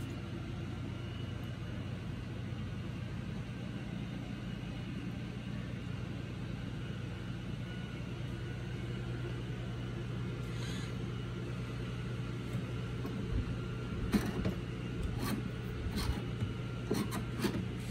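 A steady low machine hum, with a few light clicks and knocks near the end as parts of the pinball cabinet are handled.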